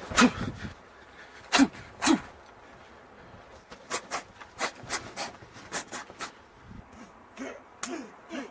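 Fight-scene sounds: two men giving sharp shouts and grunts with sudden onsets. In the middle comes a quick run of about eight sharp smacks of blows and blocks, followed by short huffing grunts near the end.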